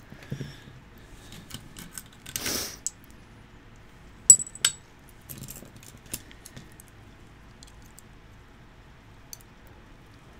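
Small metal parts of a brass lock cylinder and its key clicking and clinking as the lock is taken apart by hand, with a short scrape about two and a half seconds in and a sharp ringing clink, quickly followed by a second, about four seconds in.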